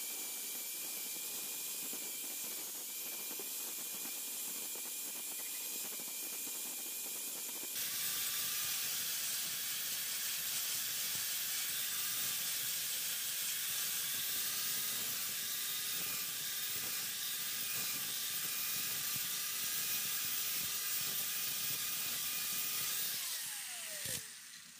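Corded electric angle grinder running with a steady high whine and hiss as it sands and grinds wood; it gets louder about eight seconds in. Near the end it is switched off and the whine falls away as the disc spins down.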